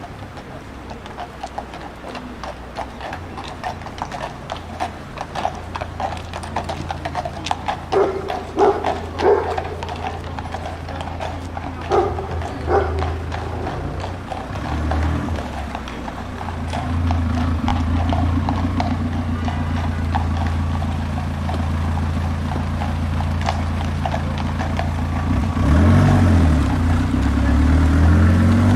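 Horse hooves clip-clopping in a steady run of clops, with a few brief pitched sounds about eight and twelve seconds in. A motor vehicle's engine hum builds from about halfway and is loudest near the end, where its pitch rises and falls.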